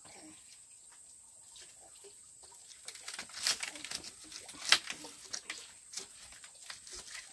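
Wood fire under a cooking pot crackling, with scattered clicks and knocks as sticks are pushed into it; a sharp crack about four and a half seconds in is the loudest.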